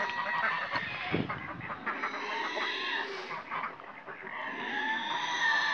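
Farmyard poultry, chiefly chickens, clucking and calling, with wavering calls overlapping through the whole stretch.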